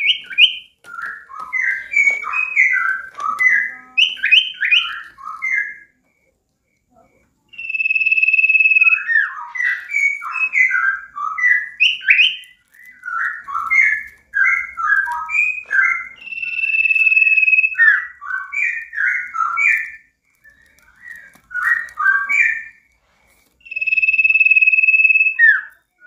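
Caged sirtu songbird in full song: quick runs of varied chirping notes, three times broken by one long, level whistled note, with two short pauses.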